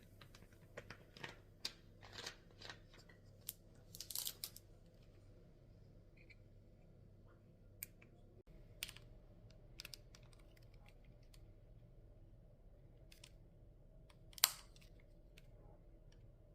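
Scattered small clicks and taps of objects being handled, bunched in the first few seconds, with a sharper click near the end, over a faint steady hum.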